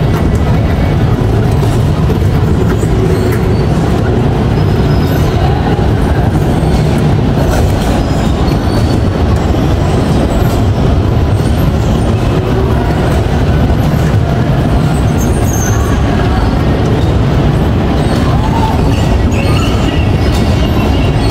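Electric bumper car driving across the rink floor, heard from its driver's seat: a loud, steady low rumble of motor and wheels rolling.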